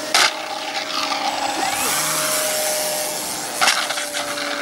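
Electric motors and propellers of E-flite Cessna 150 foam radio-controlled planes whining steadily, the pitch sinking slightly. Two short rushes of noise break in, one just after the start and one about three-quarters of the way through.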